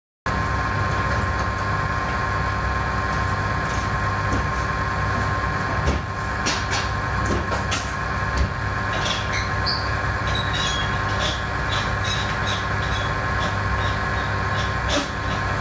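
Steady hum of running lab machinery, with light clicks and taps from about six seconds in as gloved hands handle small metal parts of the particle gun.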